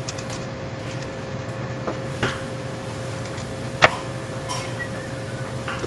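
Short knocks and taps of a fish and knife being handled on a plastic cutting board and steel counter, the sharpest about four seconds in, over a steady mechanical hum.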